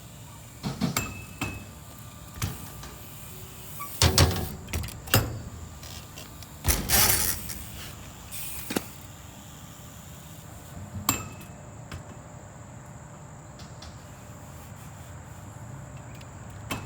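BMX bike clanks and knocks on skatepark ramps: several sharp impacts of wheels and frame landing, with a short scraping burst near the middle.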